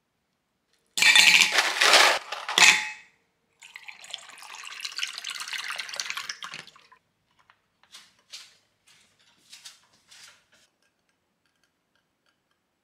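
Tea poured into a glass mug: a steady splashing pour lasting about three seconds. It is preceded, about a second in, by a loud burst of clatter, and followed by a few light clicks.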